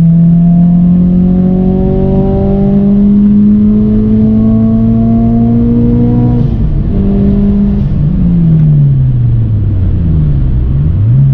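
Turbocharged Scion FR-S flat-four engine under acceleration, its pitch rising steadily for about six seconds and then dropping off. Later the pitch sweeps down for a couple of seconds and quickly climbs back to a steady drone.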